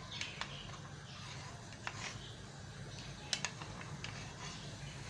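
Metal spoon stirring a cornflour-and-water slurry in a small bowl, with a few sharp clicks as it knocks the bowl, two of them close together just past three seconds, over a steady low hum.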